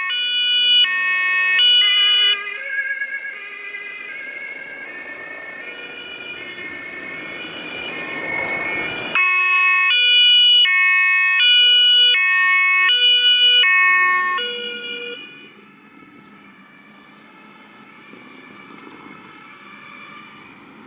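German two-tone emergency-vehicle siren (Martinshorn) alternating between its two pitches. It is loud at first and weakens, a rushing noise swells, and the siren comes back loud about nine seconds in. It dies away after about fourteen seconds, leaving a quieter, steady vehicle rumble.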